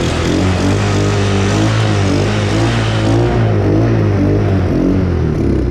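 Small single-cylinder four-stroke engine of a 125cc Chinese kids' ATV running with a slightly wavering note, its carburettor freshly cleaned and readjusted after hard starting and rough running.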